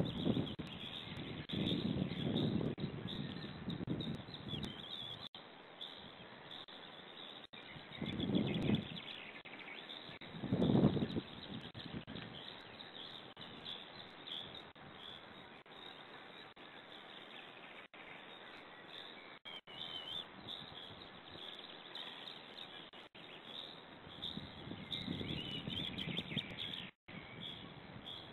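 Small songbirds singing in the surrounding forest, with a few low rumbles about a third of the way in and again near the end.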